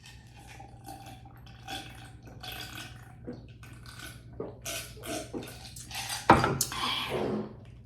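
Close-miked eating sounds: wet chewing and mouth noises of someone eating green-lipped mussels, with a sharp click about six and a half seconds in.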